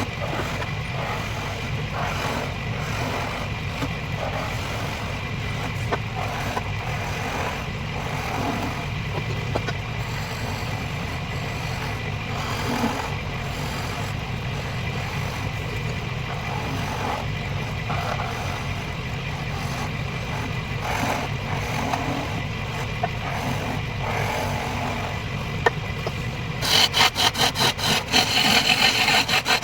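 Wood lathe motor running steadily while a tool scrapes intermittently against the turning wood. Near the end a much louder, fast rhythmic rasping starts as the tool bites harder into the spinning workpiece.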